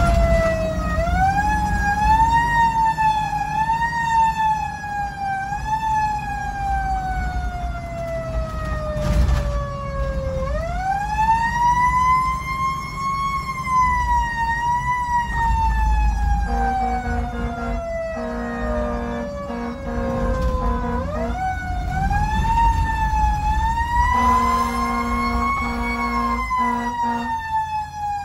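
Federal Q2B mechanical siren heard from inside the fire engine's cab, winding up and then slowly coasting down in long rising and falling wails, three times over. A little past halfway, and again near the end, the air horn sounds in short repeated blasts. The truck's engine runs underneath.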